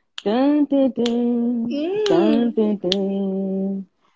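A woman singing a wordless tune in long held notes, with a second voice briefly overlapping about two seconds in.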